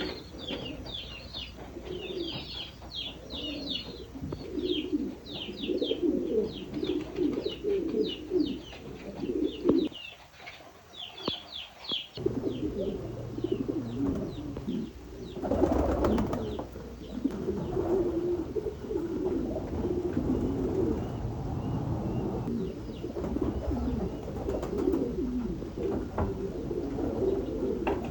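Domestic pigeons cooing continuously in their loft, with series of rapid high-pitched chirps through roughly the first half.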